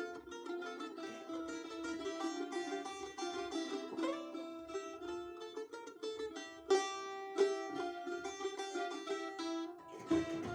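Balalaika played solo, a lively run of fast strummed notes, with two sharp accented strokes about two-thirds of the way through.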